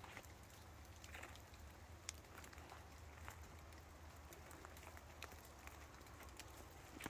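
Near silence: a faint steady low hum with scattered light ticks and taps.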